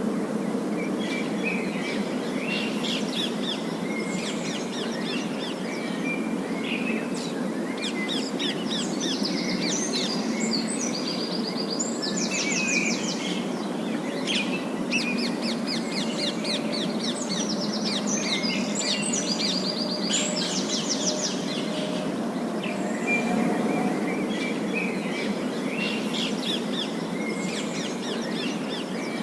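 A group of parakeets chattering and chirping, rapid high trills and calls that keep overlapping, over a steady low background hum.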